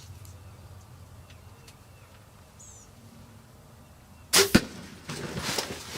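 A bow shot at a gobbler: about four seconds in, two sharp cracks a fraction of a second apart, the string's release and the arrow striking. Irregular rustling and scuffling follow.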